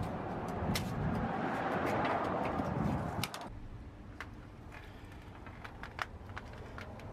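Handling noise from fitting insulation covers onto copper water pipes: rustling and scattered sharp clicks over a steady background rumble. A little over three seconds in it drops abruptly to a quieter background with only a few light ticks.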